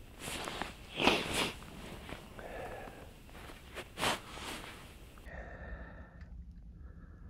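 A person sniffing sharply through the nose a few times, the loudest sniff about a second in. Near the end only a faint steady background remains.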